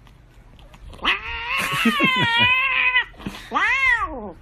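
Domestic cat meowing: a long, wavering meow begins about a second in, followed by a shorter meow that rises and then falls in pitch near the end.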